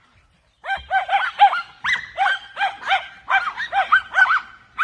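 Small dogs yapping in quick, high-pitched barks, about four a second, starting just under a second in and keeping on without a break while they play with a big exercise ball.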